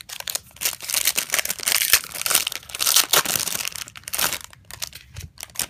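Trading-card pack wrappers crinkling and tearing as they are handled and ripped open by hand, with a dense run of crackles for about four seconds that thins out to scattered crinkles near the end.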